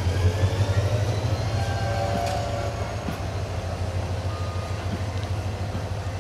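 Passenger coaches of a departing diesel-hauled train rolling past at close range: a steady low rumble of wheels on the rails, easing off slightly toward the end.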